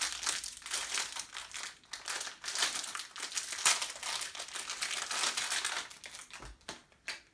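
Plastic packaging crinkling and rustling as it is handled, dying away about six seconds in, followed by a couple of light clicks.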